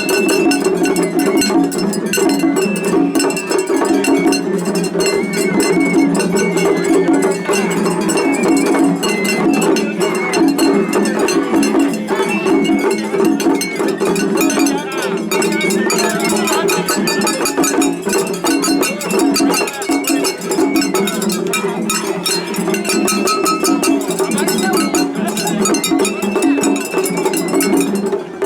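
Japanese festival hayashi music played continuously: a high bamboo flute melody over taiko drums, with a small hand gong struck in quick metallic ticks.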